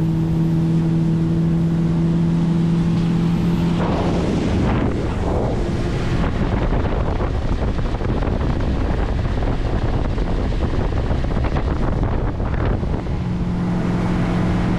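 Fishing boat's engine running steadily under way, a low even hum, with heavy wind buffeting the microphone. About four seconds in, the wind noise swells and covers the engine hum, which shows through again near the end.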